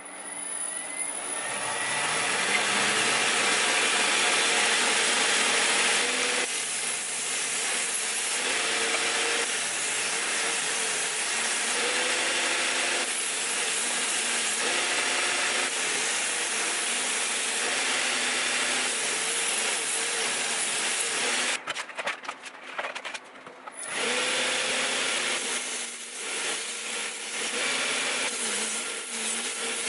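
Steel kitchen knife being ground on a running belt grinder: a loud, steady hiss of the blade against the abrasive belt, over the steady hum of the grinder's motor. The hiss builds up in the first couple of seconds. It breaks off briefly about two-thirds of the way through as the blade comes off the belt, then picks up again.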